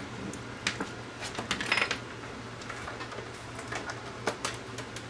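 Light clicks and rattles of a metal table lamp, its cord and hand tools being handled on a workbench, with a denser run of clatters between one and two seconds in, over a steady low hum.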